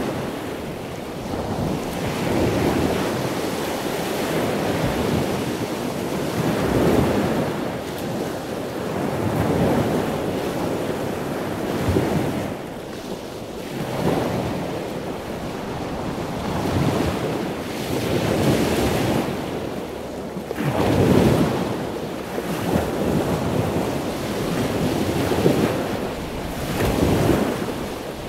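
Surf washing onto a sandy beach, swelling and ebbing every few seconds, with wind buffeting the microphone.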